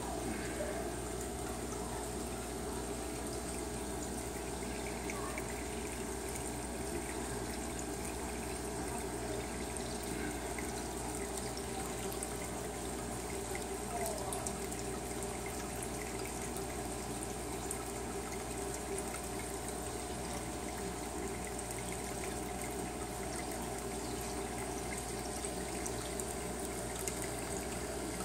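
Steady trickling and bubbling of aquarium water from the tank's filtration, over a constant low hum.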